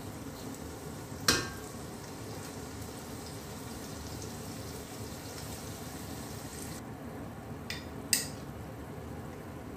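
Onion-tomato masala frying in desi ghee in a stainless steel pot, giving a steady sizzle as it is stirred and cooks. There is one sharp knock of a utensil against the pot about a second in, and two quicker knocks near the end.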